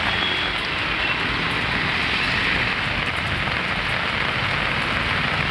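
Steady rain falling on a waterlogged street: an even, unbroken hiss.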